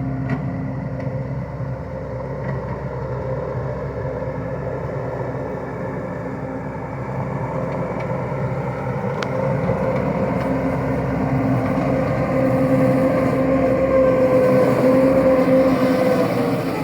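Wacker Neuson SM100 mini skid steer's engine running steadily while it digs, growing louder about twelve seconds in as it works harder, with a few light clicks.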